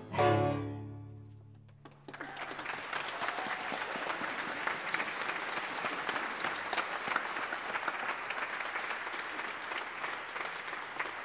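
The last chord of the instrumental accompaniment dies away, then an audience applauds from about two seconds in, the clapping fading near the end.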